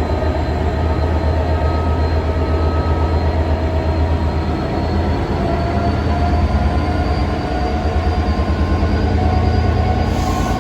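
Class 66 diesel-electric locomotive departing with a train, its two-stroke EMD V12 diesel engine working under power with a loud, steady, pulsing low drone.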